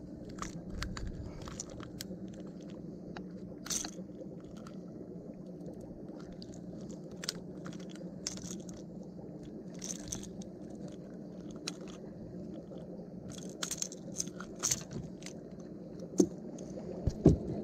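Fishing pliers and a lure's metal hooks clicking and clinking as a hooked snapper is unhooked, many small scattered clicks over a steady low hum, with a few louder knocks near the end.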